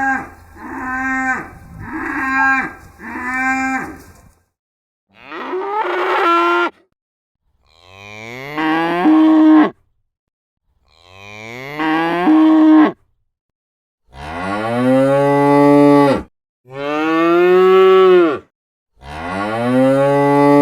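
Domestic cattle mooing: first a run of short moos about one a second, then six separate long moos of about two seconds each, each swelling in loudness and several rising in pitch at the start.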